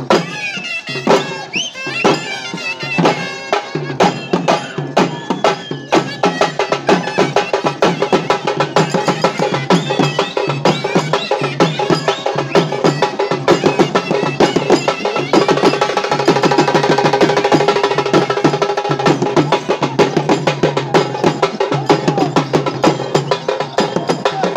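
Traditional festival music: fast, steady drumming with a wind instrument playing a melody over it.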